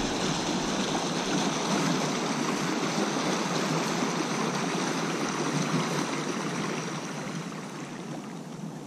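Stream water rushing steadily where it breaks white along the bank, slowly getting quieter toward the end.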